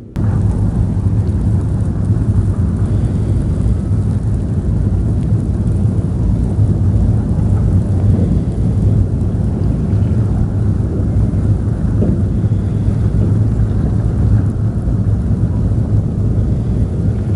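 Wind buffeting the microphone outdoors by the sea: a loud, steady low rush with no distinct events.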